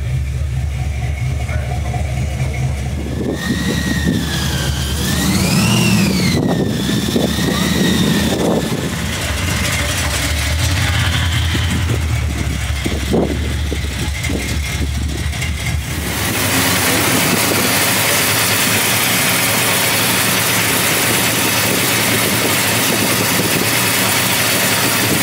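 Car engines running: first a deep, steady rumble, with a high tone that rises and falls a few seconds in. About two-thirds of the way through the sound changes sharply to a steadier, hissier engine sound with far less low rumble.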